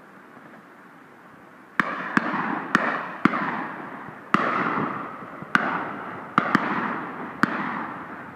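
Shotguns firing on a driven game shoot: about nine shots in quick, irregular succession, starting about two seconds in. Each shot is followed by a long rolling echo.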